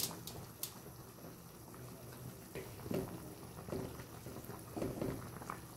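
Pot of chicken tinola soup at a rolling boil: steady low bubbling, with a few soft splashes and light clicks as a wooden spatula is stirred through the broth.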